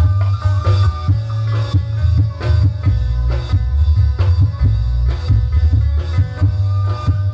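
Sundanese kacapi suling ensemble playing an instrumental passage through a stage loudspeaker: plucked kacapi zither notes over a steady beat of drum strokes, with a heavy, boomy bass.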